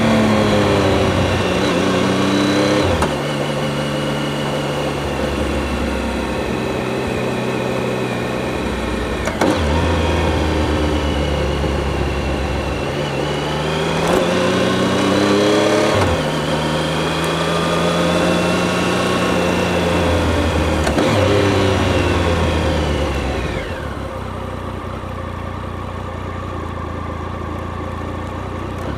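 Triumph motorcycle engine picked up by a microphone under the seat, pulling through the gears: the engine note climbs and then drops at each of several gear changes. About five seconds from the end it falls lower and quieter as the bike slows.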